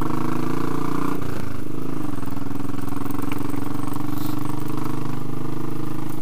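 Royal Enfield Classic 500's air-cooled single-cylinder engine running steadily under way, heard from the rider's seat. The engine note dips briefly about a second in and then picks up again.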